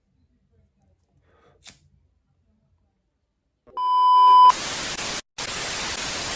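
Near silence with a faint click, then a TV test-card sound effect: a steady high beep lasting under a second, cut off by loud TV static hiss that drops out briefly about a second later.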